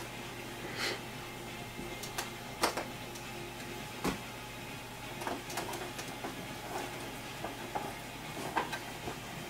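Scattered clicks and knocks of a Pioneer CDJ-800 MK2 CD player being handled with a screwdriver and turned over on the table, over a steady low hum.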